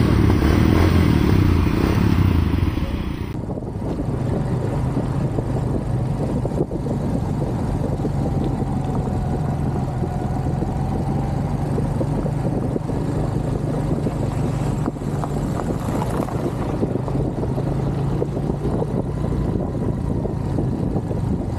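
Motorcycle engine running at a steady pitch, after an abrupt change in the sound about three seconds in.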